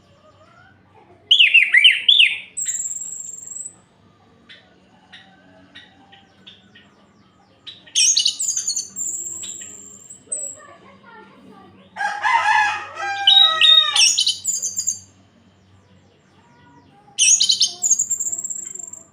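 Orange-headed thrush (anis merah) singing: four loud phrases of quick, varied notes a few seconds apart, each ending in a high, thin drawn-out whistle.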